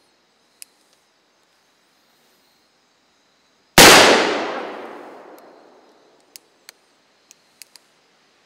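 A single shot from a Pietta replica Starr .44 black-powder percussion revolver, fired in single-action mode, about four seconds in; the report fades away over about two seconds. A few faint clicks come before and after it as the revolver is handled and cocked.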